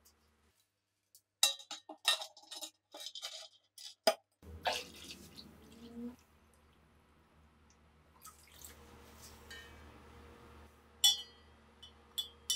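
Small rusty gun parts clinking one after another into a tall glass cylinder, then water poured in from a bottle onto the caustic soda, splashing for a second or two. A couple of sharp clinks come near the end.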